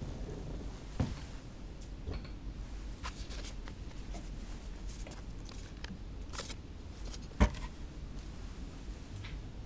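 Low steady room hum with scattered small clicks and rustles. There is a soft click about a second in and one sharp knock about seven and a half seconds in.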